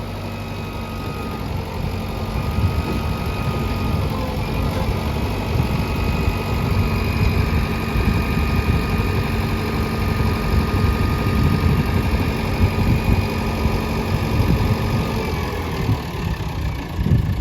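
Diesel engine of heavy machinery running steadily, its note picking up slightly about two seconds in and easing off near the end.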